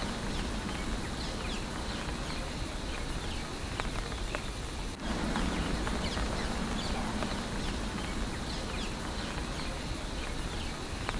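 Rural outdoor ambience: small birds chirping over a steady low rumble, with a brief break about five seconds in where the sound restarts.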